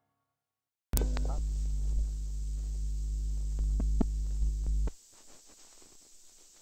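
Loud electrical hum with a few sharp clicks, starting abruptly about a second in and cutting off sharply after about four seconds, then faint crackle.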